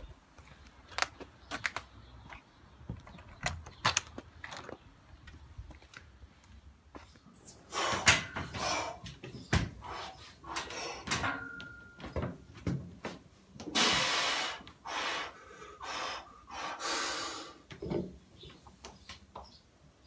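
Heavy barbell back squat: scattered knocks and rattles from the loaded bar and plates, and several loud, breathy exhalations about a second long from the lifter, the loudest about two-thirds of the way through.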